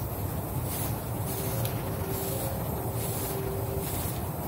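Airbrush spraying touch-up paint onto a car body panel in repeated short hissing bursts, over a steady low rumble.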